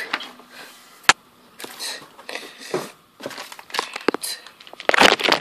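Packaging being handled and unwrapped: scattered small clicks and rustles, one sharp click about a second in, then a loud burst of crinkling rustle near the end.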